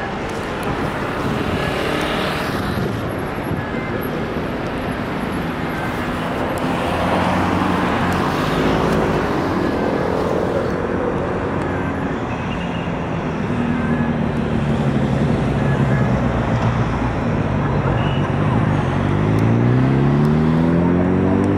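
Steady city road traffic: car engines and tyres passing, with engines speeding up near the end as their pitch rises.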